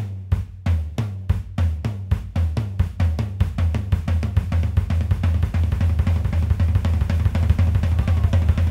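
Acoustic drum kit playing a linear right-left-kick pattern, right stick, left stick, then bass drum, repeated over and over. It starts at a few strokes a second and speeds up within the first few seconds to a fast, dense, even stream of strokes.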